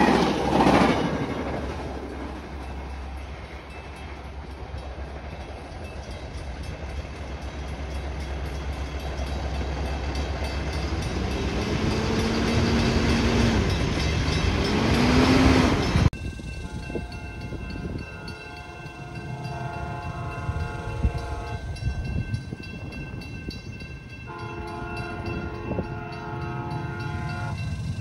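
A Trinity Railway Express commuter train's bilevel coaches rolling past, with the wheels rumbling on the rails over a steady low drone. After a sudden cut, a train's multi-note air horn sounds in the distance in two long blasts.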